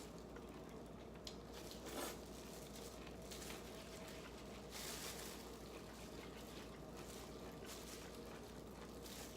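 Quiet eating sounds: soft chewing with a few small clicks and squishes of food, the most distinct about two seconds in, over a faint steady hum.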